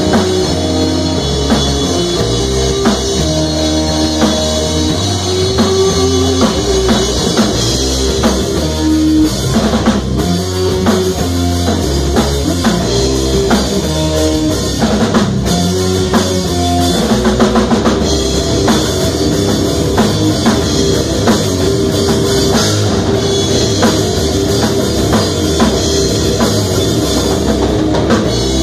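Live rock band playing loudly, the drum kit prominent with a steady beat of bass drum and cymbal hits under held pitched notes.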